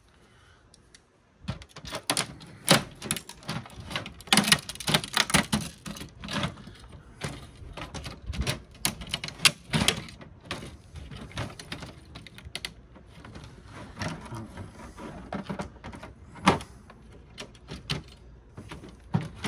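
Hand pliers and cutters clicking and clattering against a DVD player's circuit board and plastic chassis as parts are wrenched and snipped off. The irregular run of sharp clicks and knocks starts about a second and a half in.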